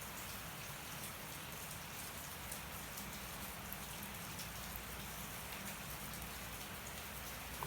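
Steady rain falling, with scattered faint crackles and pops from a wood campfire.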